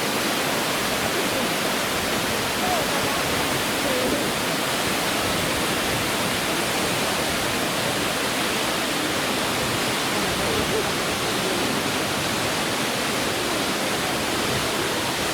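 Fukuroda Falls, a large tiered waterfall about 120 m high, rushing steadily as an even wash of falling water.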